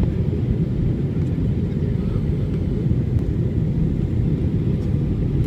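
Steady low rumble of an airliner in flight heard from inside the cabin: engine and airflow noise.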